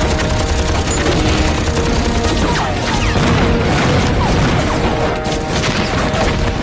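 Film battle sound effects: rapid gunfire and explosions over music.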